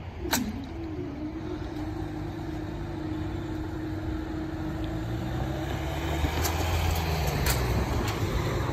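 Level crossing barriers rising after a train has passed: a sharp click, then a steady hum from the barrier mechanism for about five seconds while the booms lift. Near the end, car engines grow louder as the waiting road traffic moves off, with a few sharp clicks.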